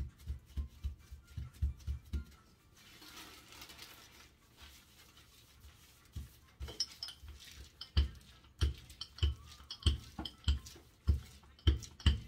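Bread dough being flattened by hand on a work surface: a run of soft rhythmic knocks, a brief rustle of plastic bags about three seconds in, then steadier knocks with light clicks, about two a second.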